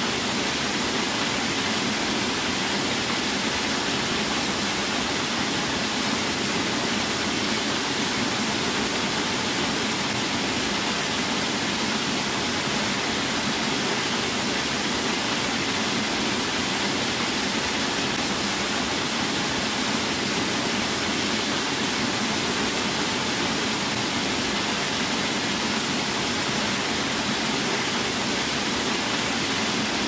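Small waterfall pouring over a rock ledge into a shallow pool: a steady, even rush of falling water, mostly hiss with little deep rumble.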